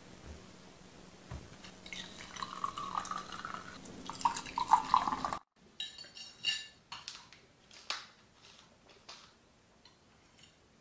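Liquid splashing into a glass for a few seconds, then sharp clinks of forks against porcelain plates and glass tea cups during a meal.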